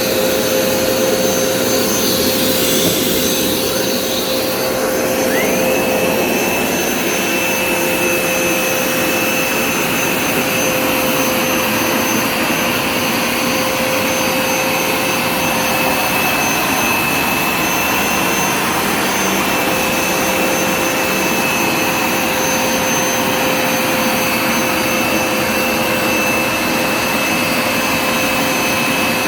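Hoover Smartwash Pet Complete carpet cleaner running: loud, steady suction rush with a high motor whine. The whine drops away and then climbs back up about five seconds in.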